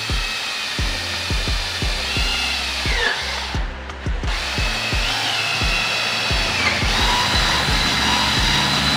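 Cordless drill boring a hole through a PVC pipe tee, its motor whine dipping in pitch as the bit bites. It stops briefly a little after three seconds in, then runs again. Background music with a steady beat underneath.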